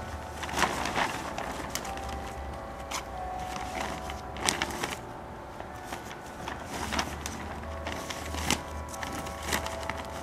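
Plastic sheeting crinkling and rustling as it is pulled and smoothed over wire hoops, with irregular sharp crackles every second or so.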